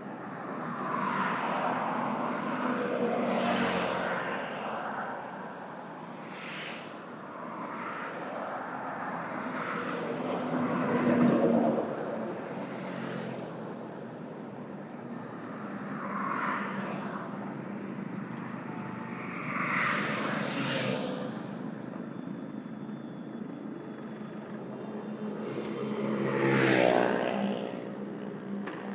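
Stock 2025 Kawasaki Z900's inline-four engine and stock exhaust running under way at road speed, heard with the wind and road noise of riding. The sound swells louder several times, and near the end the revs climb.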